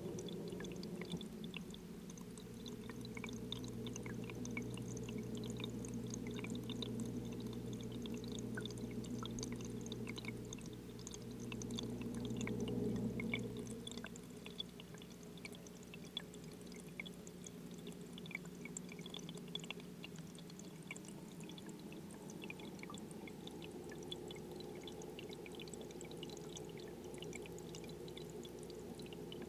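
Sound inside a running aquarium, heard through the water: a steady low hum with many faint, scattered ticks and crackles. The hum drops in level about halfway through.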